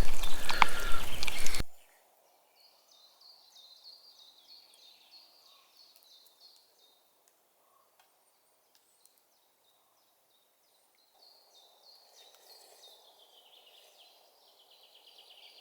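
A noisy stretch that cuts off abruptly under two seconds in, then faint birdsong: a bird repeating short high chirps over otherwise quiet forest ambience.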